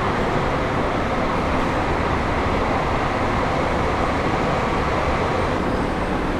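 Steady vehicle noise: an even, unbroken rush with no distinct events.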